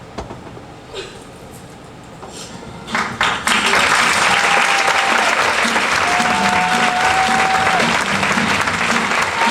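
Audience applause breaks out about three and a half seconds in and carries on loudly and evenly, with a few held tones above it.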